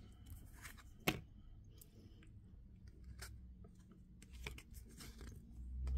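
Tarot cards being handled: scattered faint clicks and light taps, one sharper click about a second in, over a low steady hum.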